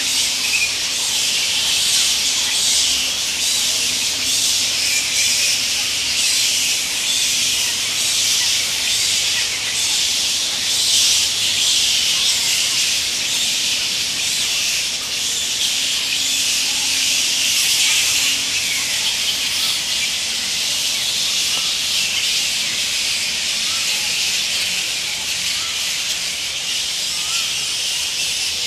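A large colony of bats roosting in trees, giving a dense, continuous high-pitched chatter of many overlapping squeaks and screeches.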